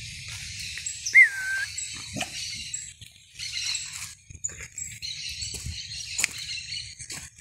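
A dog gives one short, high whine about a second in, rising then falling in pitch, followed by a few faint clicks.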